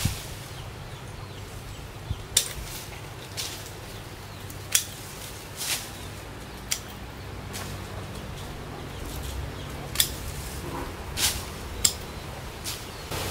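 Sharp snips as small lychee shoots are cut off during pruning, about a dozen single clicks spaced irregularly.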